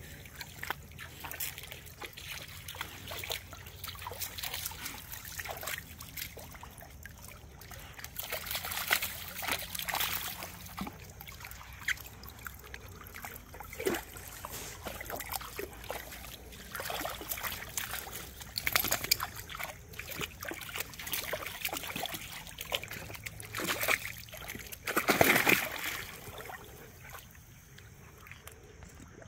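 Dogs splashing as they wade through a shallow, rocky creek, over the trickle of running water. The loudest splash comes near the end.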